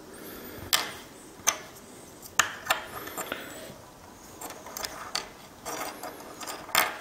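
Small plastic W5W LED bulbs handled by fingers and set down on a wooden tabletop: a string of irregular sharp clicks and taps, the loudest near the end.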